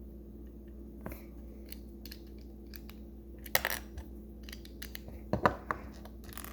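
Small plastic LEGO pieces clicking and clattering as they are sorted and handled, with a couple of louder clacks in the second half.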